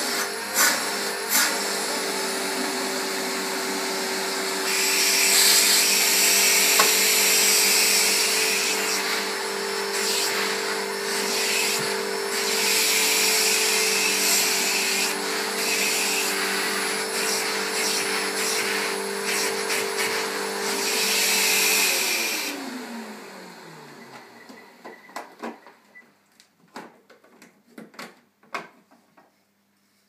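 Panasonic MC-E47 upright vacuum cleaner's 700 W motor running steadily, with loud hissing rushes of air as the hose and its nozzle suck at the carpet. About 22 seconds in the motor is switched off and its hum falls in pitch as it winds down, followed by scattered clicks and knocks of the hose being handled.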